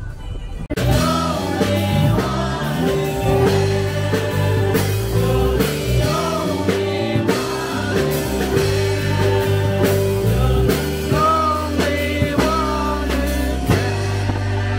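Background pop-rock song with a singer, bass and drums, which comes in full about a second in.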